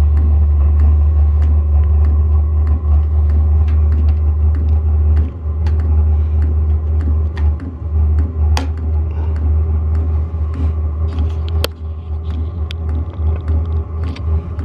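Hcalory diesel air heater running through its first start-up before it has lit, a loud steady low rumble with a fan whir and frequent sharp ticks over it. The noise leaves the owner unsure whether it is normal.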